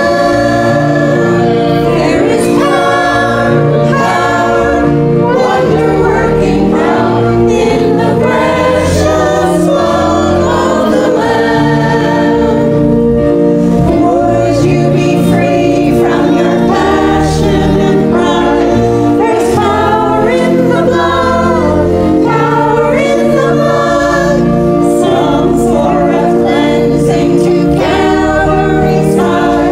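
A church choir singing a hymn-style anthem, with accompaniment holding a stepping bass line beneath the voices. It runs on steadily without a break.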